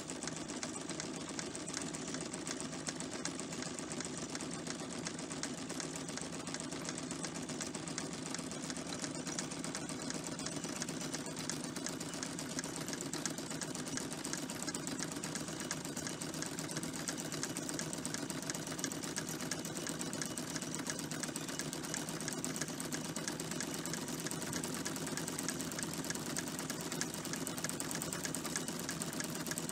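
Mamod and Wilesco toy workshop models running: belt-driven line shafting and small model machine tools giving a fast, steady mechanical clatter and ticking.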